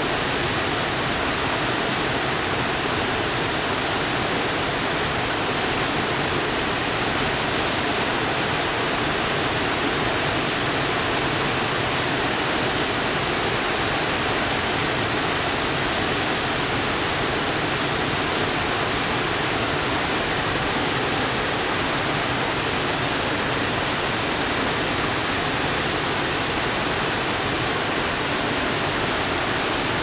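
A large waterfall pouring into its plunge pool: a steady, even rush of falling water that does not change.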